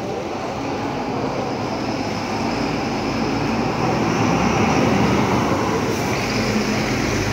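Diesel engine of a Caio Apache VIP city bus on a front-engined Mercedes-Benz chassis, driving past close by. It gets louder as the bus draws alongside about four to six seconds in, with tyre noise on wet pavement.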